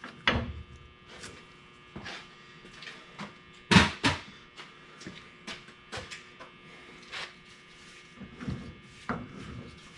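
Scattered clicks and knocks of hand work on an opened rear differential, the loudest a sharp knock about four seconds in, over a faint steady hum.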